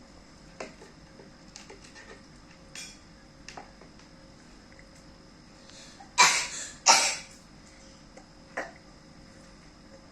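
Light taps and clicks of tableware being handled, then two loud clattering scrapes about a second apart near the middle, and one more tap later.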